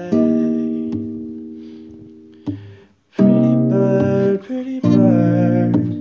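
Acoustic guitar strumming chords: a chord rings out and fades over about two seconds, then louder strummed chords come in about three seconds in and again near five seconds.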